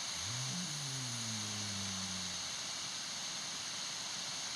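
A man's snore recorded overnight by a sleep-tracking phone app and played back: one low, droning snore lasting about two seconds, falling slightly in pitch, over the recording's steady hiss. The snorer says he has a problem with sleep apnea and snoring.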